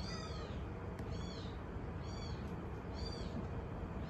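Cat mewing: short, high-pitched cries repeated about once a second.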